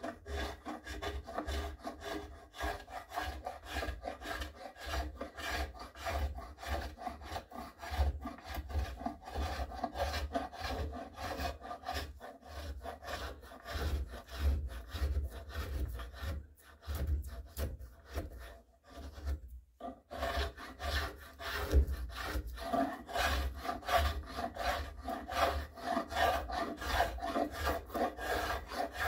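A hand rasp scraping wood in quick repeated strokes, shaping the barrel channel of a wooden rifle stock to take off excess material. There are a couple of brief pauses in the second half.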